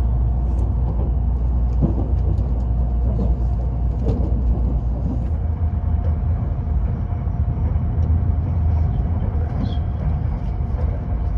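Shinkansen train running, heard from inside the passenger cabin: a steady low rumble with a faint, even hum above it.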